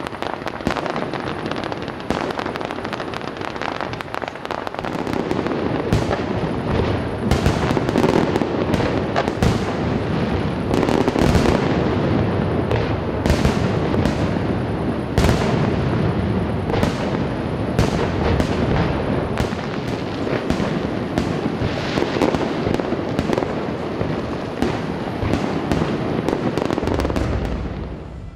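Fireworks display: aerial shells and rockets bursting in quick succession, many sharp bangs over a continuous crackle, cutting off near the end.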